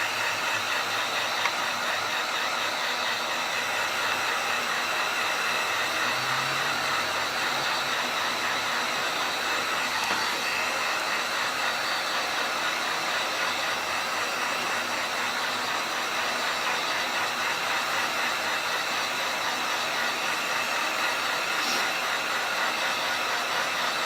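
Hot-air tool blowing steadily with an even fan hiss, heating the Galaxy S5's glass to soften the adhesive under the LCD before prying.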